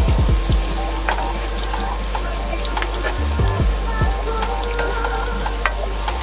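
Food sizzling in a hot pan while it is stirred, with a few low thumps near the start and again about three seconds in.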